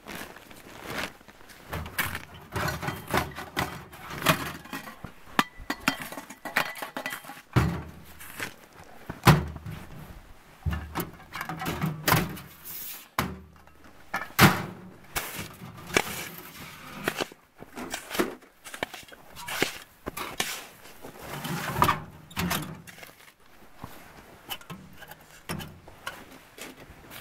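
Camping gear being handled: a canvas tent rustling on a plastic tarp, then irregular metal clunks and knocks as nested stovepipe sections are pulled out of the firebox of a Kni-Co Alaskan steel wood stove.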